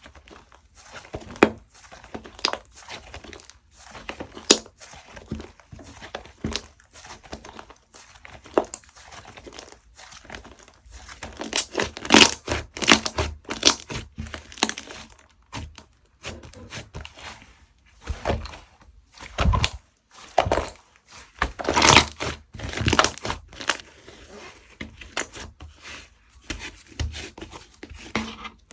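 Hands squishing, stretching and poking slime, making a run of irregular sticky clicks, pops and crackles that grow louder and denser around the middle.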